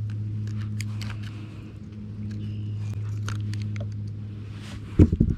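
Steady low electric hum from the bass boat's motor, with scattered small clicks; a quick cluster of loud low thumps just before the end.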